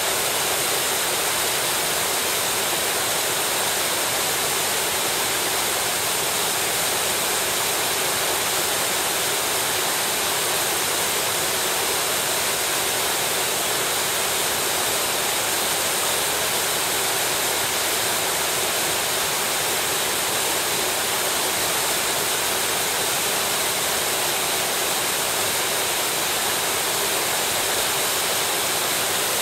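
Small mountain stream's water rushing over rocks, a steady, unchanging flow.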